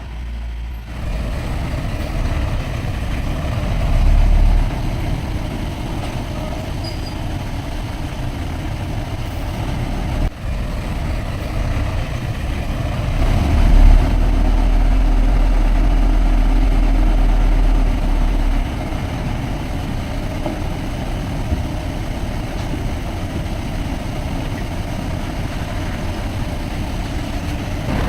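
Heavy diesel earthmoving machinery running steadily, a deep engine rumble that swells louder briefly about four seconds in and again for about five seconds in the middle.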